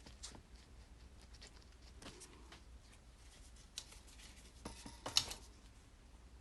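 Faint handling sounds: light taps and rustles as a glossy cardboard product box is moved about, with a sharper tap about five seconds in.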